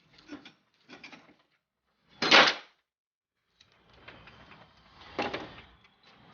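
Dust cover being worked out of the bore of a Fiat Palio Weekend rear trailing arm: a couple of short scrapes, a sharp clank about two seconds in, then a longer rasping scrape of metal on metal.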